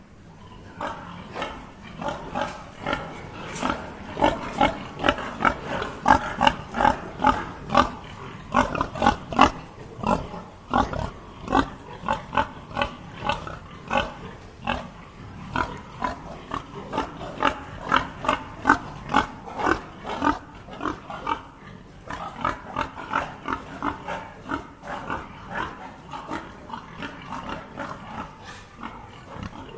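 Pigs grunting: a dense run of short calls, about two a second, loudest in the first third and easing off a little in the last third.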